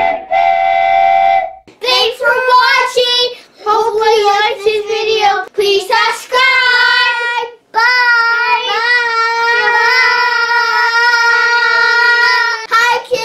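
Children singing a short outro song in phrases, ending on one long held note. A brief steady tone comes just before the singing starts.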